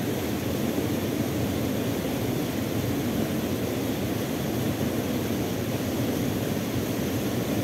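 Steady rush of a small waterfall spilling into a river pool, mixed with falling rain.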